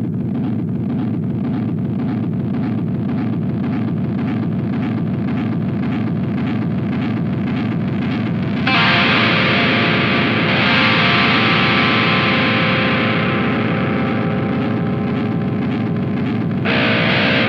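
Metal song with distorted electric guitars. A low, pulsing opening gives way about nine seconds in to the full band, louder and brighter.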